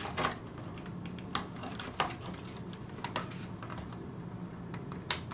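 Plastic parts of a transforming robot toy figure clicking and clacking as they are handled and tabbed together, with about five sharp clicks at irregular spacing over a faint steady low hum.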